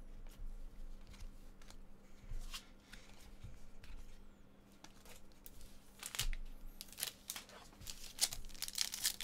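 A stack of chromium baseball trading cards being thumbed through one card at a time, making short flicking and slapping clicks as the cards slide off one another. The clicks come sparsely at first and grow quicker and louder about two-thirds of the way in.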